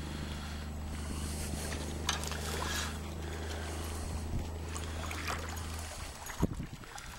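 A steady low hum over the sound of moving river water and light wind noise. The hum cuts off suddenly about six seconds in, and a few splashes follow near the end.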